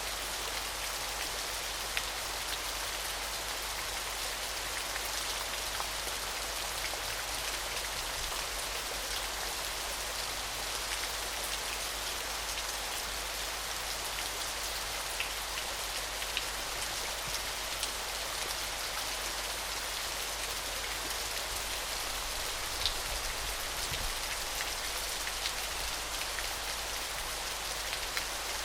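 Small waterfall splashing in an even, steady hiss, with scattered faint droplet ticks on top.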